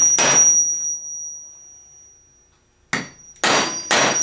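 Hammer striking a steel hole punch through thick canvas on a block of wood. One blow right at the start leaves a high metallic ring that fades, and after a pause come three more blows near the end.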